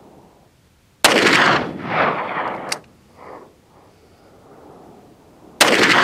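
Two shots from a Taurus Raging Bull .44 Magnum revolver with a 6.5-inch barrel, about four and a half seconds apart. Each shot is followed by a rolling echo lasting over a second.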